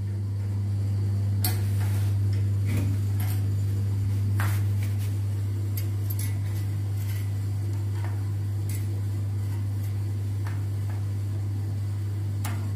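Scattered metallic clicks and clinks from work on a bicycle wheel hub, over a steady low hum that is the loudest sound throughout.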